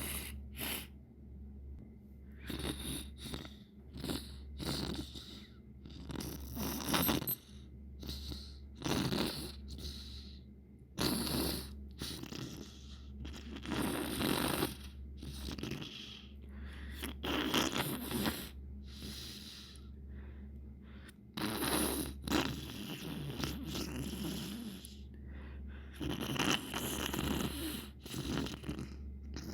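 Repeated wet, gurgly sniffles through a congested nose, about one a second.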